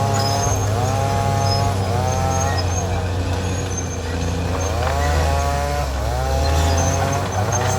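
Caterpillar D6R XL bulldozer's diesel engine running steadily under a low drone, with a high squeal that rises and then holds, repeating about once a second with a short break midway.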